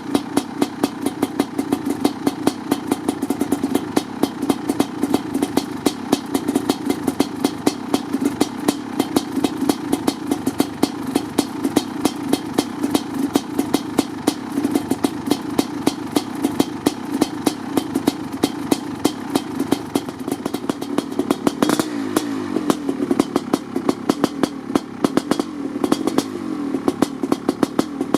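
1988 Kawasaki KX500's single-cylinder two-stroke engine running during a winter cold-start warm-up, a rapid, uneven train of exhaust pops. Its revs rise and fall briefly a couple of times about two-thirds of the way in, then settle back.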